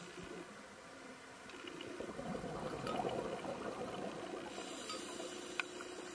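Scuba diver's exhaled bubbles gurgling and rushing underwater, swelling up and then fading, with a single sharp click near the end.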